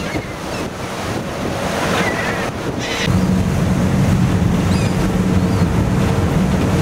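Wind buffeting the microphone over the rush of churning boat wake, with a boat engine's steady low drone coming in about three seconds in. A few faint gull cries sound over it.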